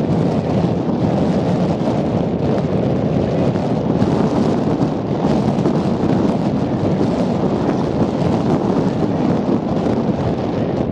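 Wind blowing across the microphone: a steady, rough, low noise that flutters in level. No animal calls or hoof sounds stand out above it.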